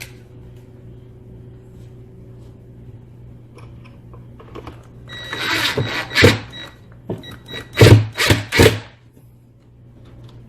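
H6 screws being driven into a not pre-drilled wooden support brace, in several short loud bursts with knocks between about five and nine seconds in.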